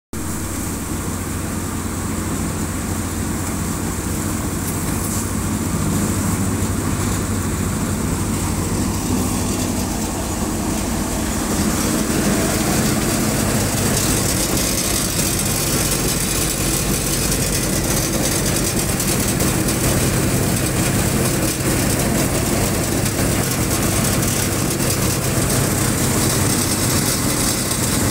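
Crop thresher running at steady speed: a continuous mechanical drone with a low hum under it. It grows a little louder about twelve seconds in.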